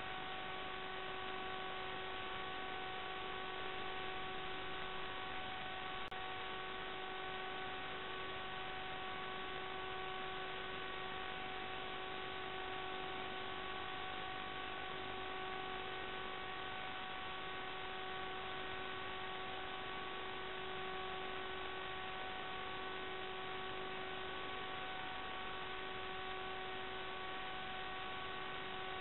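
Steady electrical hum of several even, unchanging pitches over a constant hiss, recorded by a small onboard camera on an RC aircraft.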